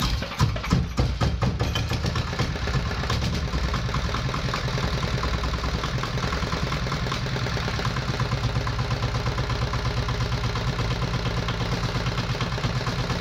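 R175 single-cylinder diesel engine, just rebuilt with a new crankshaft bearing, running after being started. It is uneven for the first couple of seconds, then settles into a steady, even idle.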